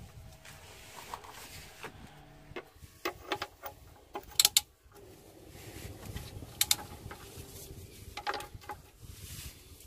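Socket and ratchet on the steel sump drain plug of a Peugeot 307 engine, loosening it to drain the old oil: scattered sharp metallic clicks and clinks in small clusters, the loudest pair about four and a half seconds in.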